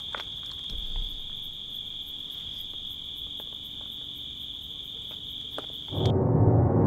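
Crickets chirping in a steady high trill. Near the end the crickets cut off abruptly and a much louder sound comes in.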